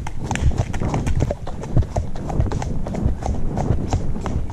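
A horse trotting, heard from the saddle: a steady, even rhythm of hoofbeats over a low rumble of movement noise.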